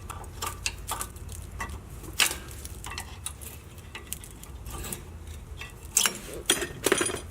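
Hand tools clinking and clanking on metal in irregular clicks and knocks over a steady low hum, during work on a brake caliper, with a few louder clanks near the end.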